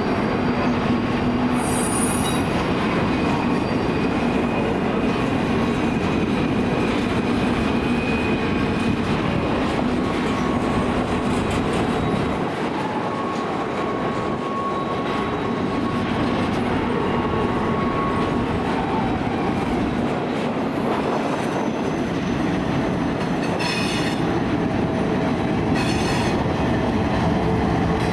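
Double-stack container train rolling past: a steady rumble of steel wheels on rail with faint wheel squeal and a few clicks. Near the end a CN diesel locomotive draws level and its engine joins in.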